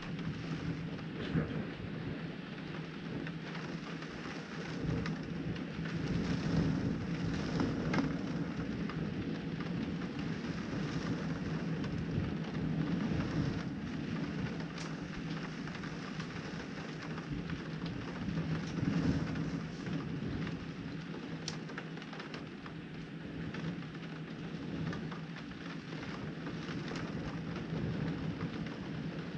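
Thunderstorm: steady heavy rain with low rumbles of thunder that swell a few times, and occasional sharp ticks of drops hitting the window glass.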